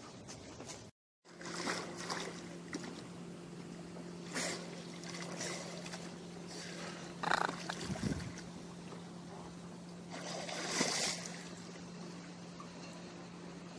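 Water splashing and sloshing as a snorkeler in fins swims and ducks under beside a boat, in bursts every few seconds, the biggest about eleven seconds in. A steady low hum runs underneath.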